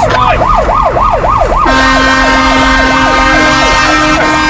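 Fire engine's siren on a fast yelp, rising and falling about four to five times a second, heard from inside the cab. About a second and a half in, the truck's air horn comes on over it and is held steadily.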